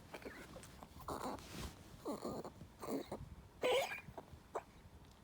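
Maltese dog coughing hard in a run of about five coughs, the loudest about four seconds in. This is the night cough that the owner links to the dog's heart disease and congestive heart failure.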